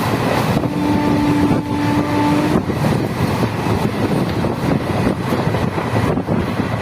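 Train running noise: a steady rumble and rush with wind buffeting the microphone. A horn sounds one steady note for about two seconds, starting about a second in.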